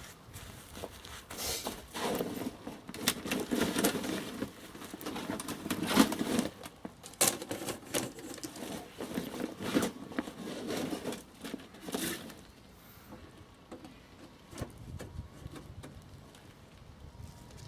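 Irregular crackling and rustling, dense for about the first twelve seconds and then sparse and quieter.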